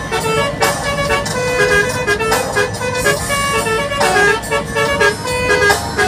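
Indonesian bus 'telolet' multi-tone air horn playing a melody: short held notes that change pitch several times a second, in phrases broken by brief pauses about every one and a half to two seconds.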